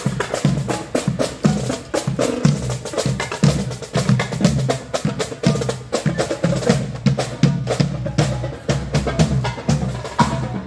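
Marching drums playing a rapid, steady cadence of snare strokes over bass drum beats.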